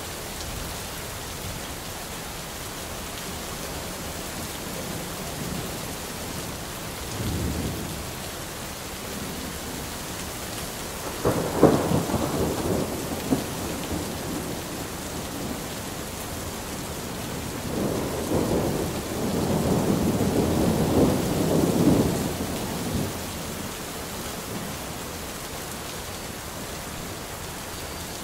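Steady rain hiss with thunder rolling through it. There is a short, low rumble about seven seconds in, then a sharp clap with a rumble around eleven seconds (the loudest moment), and a longer rolling rumble from about eighteen to twenty-three seconds.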